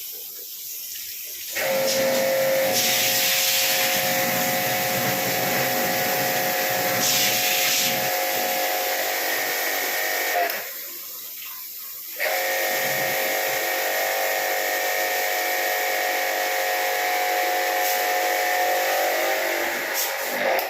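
Small electric pressure washer running, its motor whine under the hiss of the water spray, cutting out for about two seconds midway and then starting again.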